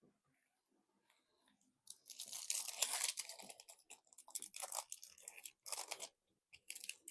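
Foil wrapper of a Magic: The Gathering collector booster pack being torn open and crinkled. It is a dense crackling tear from about two seconds in to about six seconds, then a few short crinkles near the end.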